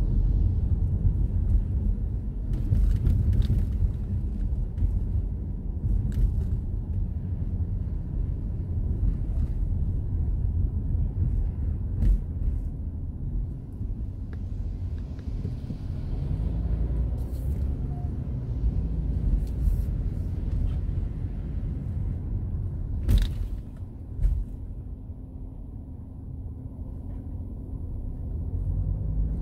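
Car cabin noise while driving on a wet road: a steady low rumble of engine and tyres, with scattered clicks and knocks, the loudest about 23 seconds in.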